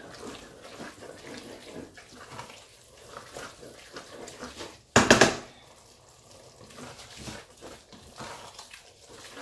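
Wooden spatula stirring a thick egusi soup mixture in a stainless steel pot, a steady run of soft, irregular scraping and stirring sounds. About five seconds in there is one short, loud knock or clatter.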